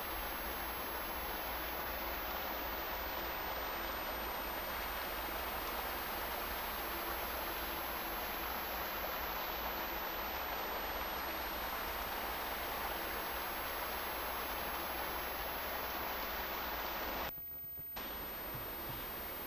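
Steady hiss of recording noise with a faint low hum and no other sound; it drops out for under a second about 17 seconds in.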